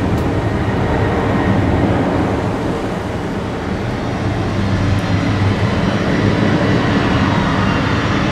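Jet engines of airliners on the runway and taxiway, heard from a distance as a steady, loud rumbling noise.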